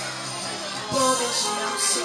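Pop ballad backing track playing over the stage loudspeakers, with a girl's solo singing voice over it, growing louder about a second in.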